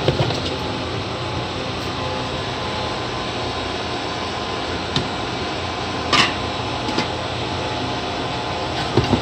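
Steady whir of server-room cooling fans and air handling, with a few sharp clicks and knocks as a Lenovo ThinkCentre M715q Tiny's plastic front bezel and metal chassis are taken apart; the strongest knock comes about six seconds in.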